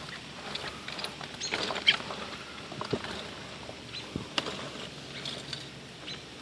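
Light scratching and rustling with scattered sharp taps and clicks, in irregular short bursts.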